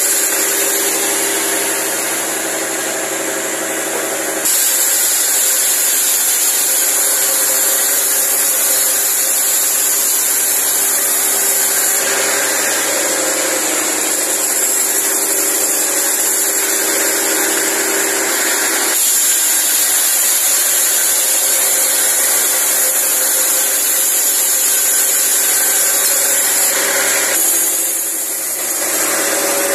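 Sawmill saw driven by a Mitsubishi Fuso truck diesel engine, running steadily while it cuts teak wood. The noise shifts abruptly several times.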